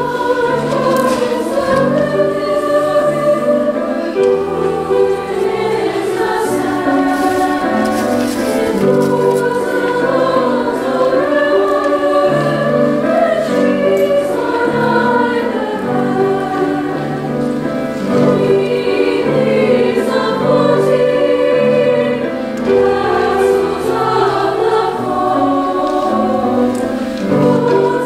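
A women's choir singing in parts, with piano accompaniment playing steady low notes beneath the voices.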